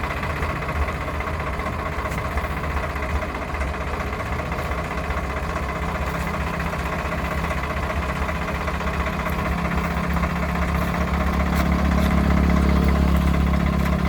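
Excavator's diesel engine idling with a steady low hum, growing somewhat louder near the end.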